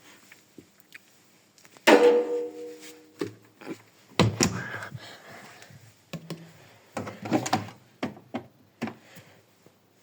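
Washing machine parts being handled: a sharp clunk with a brief ringing tone about two seconds in, then a string of softer knocks and clatters.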